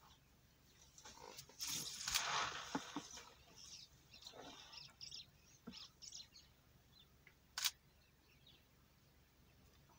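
Two bull African bush elephants sparring in dry grass. A burst of rustling and scuffing comes as they come together, with a couple of sharp knocks as they clash. Scattered scuffs follow, and a single sharp click near the end.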